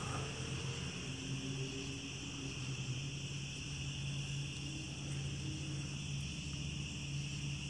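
Steady outdoor ambience: a continuous high insect buzz, like a cricket chorus, over a low, steady distant motor hum.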